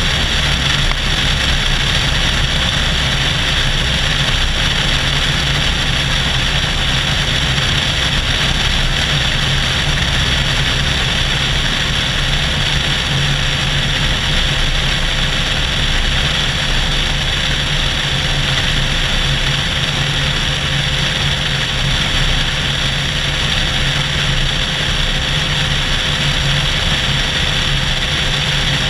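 Cessna 172SP's four-cylinder Lycoming engine and propeller running steadily in flight, with a low hum. Air rushes past the GoPro, which is mounted outside on the plane's underside.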